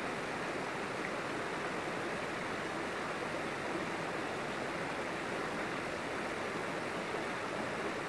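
Waterfall and stream, an even rush of water flowing over rocks. There are no separate splashes or other events.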